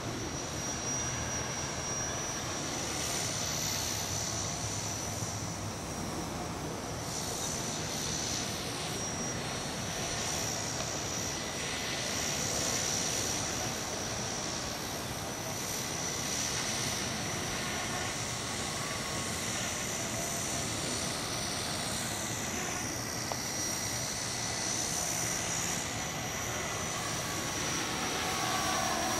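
Radio-controlled tricopter's electric motors and propellers whining as it flies overhead, the pitch sliding up and down as it turns and changes throttle, mixed with wind noise on the microphone.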